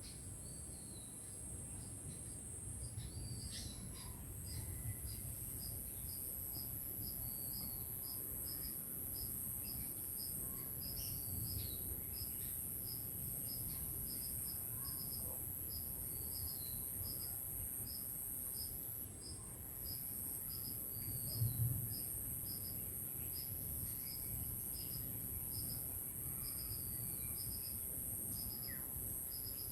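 Rural insect and bird chorus: a steady high-pitched insect drone with a short call repeating about twice a second, and scattered bird chirps over it. A low rumble underneath, with one brief louder bump about two-thirds of the way in.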